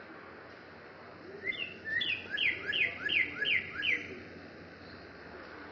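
Northern cardinal singing: one phrase of about seven quick, repeated down-slurred whistles, roughly two to three a second, starting about a second and a half in and lasting about two and a half seconds.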